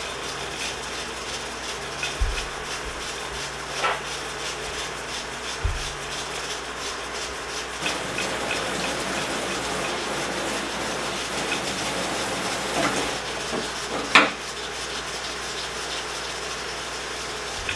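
Steady hiss of a stovetop pressure cooker still venting steam just after its heat is switched off, with the rice left to finish steaming. A few light clicks and knocks come through it, the sharpest about fourteen seconds in.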